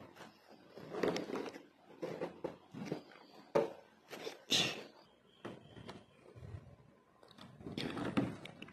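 An aari hook stitching sequins onto embroidery cloth: irregular scratching and rustling as the hook pierces the fabric and the thread is drawn through, with a few sharp clicks.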